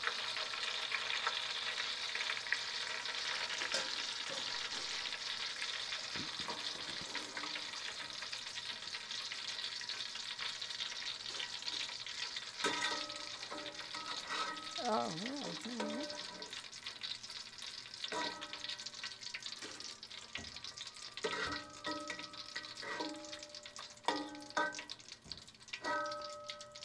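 Plantain slices deep-frying in a pot of hot oil: a steady sizzle that has settled down as the chips finish cooking, fading over the second half. From about halfway, a metal slotted skimmer scrapes and clinks against the pot as the chips are lifted out.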